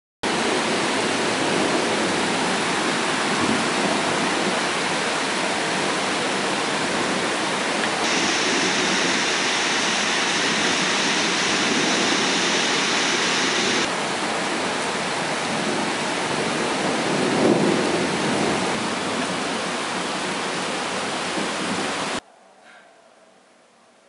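Heavy rain pouring down, a loud, steady hiss that swells briefly about three-quarters of the way through and cuts off abruptly near the end.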